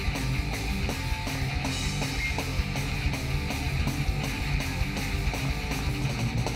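Rock band playing live in an instrumental passage: distorted electric guitars and bass over a steady drumbeat, with no singing.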